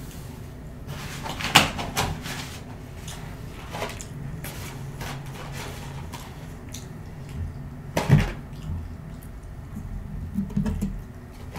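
Cardboard McDonald's nugget box handled and opened at the table: scattered crinkles, clicks and knocks, with two louder knocks about a second and a half in and about eight seconds in.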